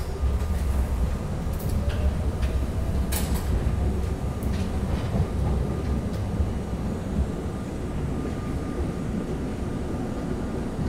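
R32 New York subway car pulling away and running along the track: a steady low rumble of wheels and running gear, a faint rising motor whine over the first few seconds as it picks up speed, and a few clacks from the rails.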